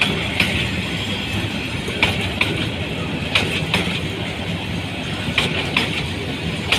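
Freight train of oil tank wagons rolling past: a steady rumble of wheels on rail, with sharp clicks in pairs as each wagon's wheels cross the rail joints, every second or two.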